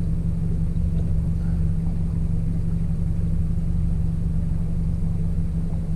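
Boat motor running steadily at low trolling speed, a constant low hum over a rumble.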